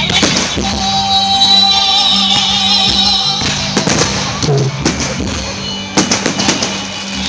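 Music with a singing voice playing, with sharp firework bangs going off among it, several in the second half as the music drops away.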